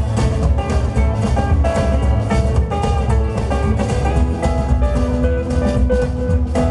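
Live band playing: acoustic and electric guitars over upright double bass and drum kit, at a steady level with no break.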